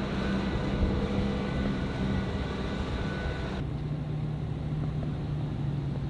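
Engine of a flightline tow tractor pulling a munitions trailer, running steadily with a low hum. A little past halfway the sound changes abruptly to a steadier, lower hum with less hiss.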